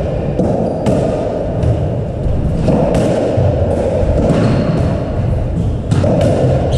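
Squash rally: the ball knocks sharply off rackets and walls about once a second, with the players' shoes on the wooden court floor under a steady rumble of the hall.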